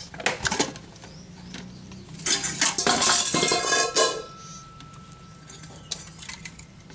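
Metal clinking and clattering from a rice cooker's stainless-steel body and inner parts being handled while the thermostat spring is worked loose. A few light clicks come first, then about two seconds in a loud, ringing rattle of metal lasting about two seconds, leaving a faint ring.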